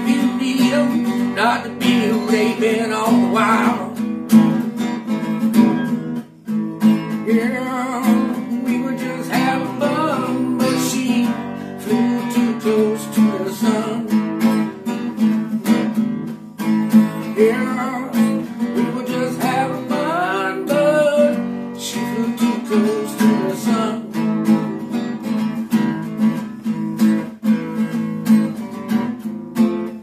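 Acoustic guitar strummed in a steady rhythm, an instrumental passage of a song. A wavering melody line sounds over the strumming three times.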